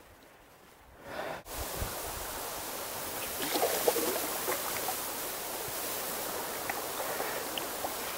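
Steady rush of a trout creek's flowing water, starting suddenly about a second and a half in, with small splashes of an angler wading in it a few seconds later.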